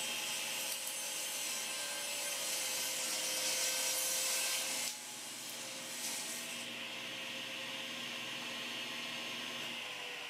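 Table saw running while its blade crosscuts the end of a glued-up hardwood cutting-board blank pushed through on a sled to square it. The cutting noise is loudest over the first five seconds and drops off sharply when the cut ends. The motor keeps humming, then its pitch starts to fall near the end as the saw winds down.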